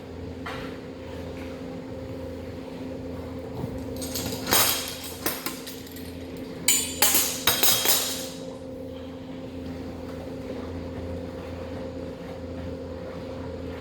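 Metallic clanks and clinks in two short clusters around the middle, from the lid of a stainless steel milk bulk tank being handled and opened. Under them is the steady hum of the tank's running agitator and cooling equipment.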